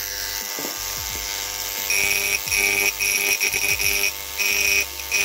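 Parkside electric engraving pen buzzing on mains power, its tip chattering against a ceramic surface in short on-off spells from about two seconds in, engraving it freehand.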